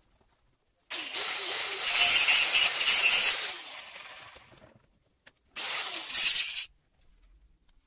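Angle grinder's abrasive disc cutting into a steel leaf spring: a burst of about two and a half seconds that dies away as the motor spins down, then a second, shorter burst of about a second past the middle.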